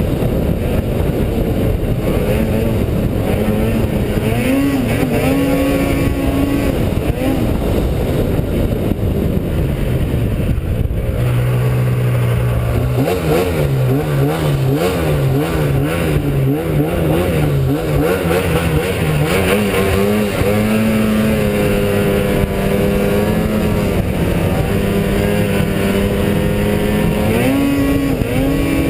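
Snowmobile engine running under way, its pitch rising and falling as the throttle changes. For several seconds in the middle the revs wobble quickly up and down, and near the end they rise again. A steady rushing noise runs beneath it.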